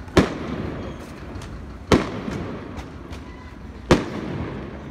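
Aerial firework shells bursting overhead: three loud bangs about two seconds apart, each trailing off in an echo, with fainter pops in between.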